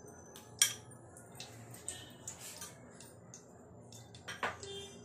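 A spoon knocks sharply against the pot about half a second in, and again shortly before the end, while desi ghee melts in the hot pot with faint, scattered high crackles.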